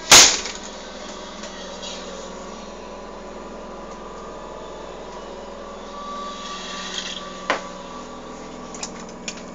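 A door in a motorhome bangs shut with one sharp knock at the start, then a steady mechanical hum runs on, with a single latch click about seven and a half seconds in.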